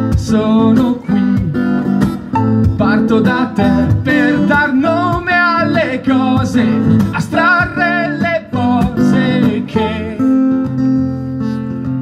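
Acoustic guitar strumming with a bowed violin playing a wavering, sliding melody over it: an instrumental break in a song. About ten seconds in, the melody and strumming give way to a held, ringing chord.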